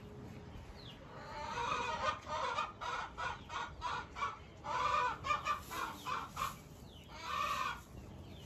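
Chicken cackling: about a second in, a run of quick, repeated clucks, with a longer drawn-out call near the end.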